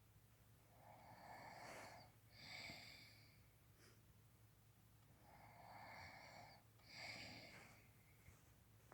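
Faint snoring: two slow breath cycles, each a longer rasping breath followed by a shorter, slightly louder one with a whistling wheeze.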